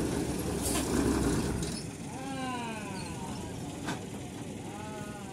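Truck engine running under load as the truck wades through deep muddy floodwater, dropping off about two seconds in. After that come two short, pitched calls that rise and fall, from a voice or an animal.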